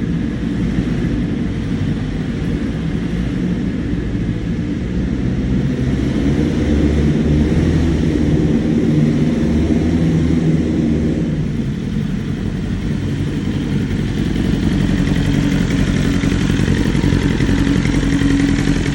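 A BMW S1000RR's inline-four engine running at a rough idle. The owner puts the roughness down most likely to an exhaust leak and a disconnected fuel injector on cylinder 4.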